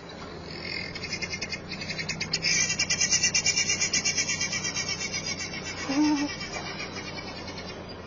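Rapid, pulsing high-pitched trilling of wildlife in the bush, with a short animal call about six seconds in, over a low steady hum.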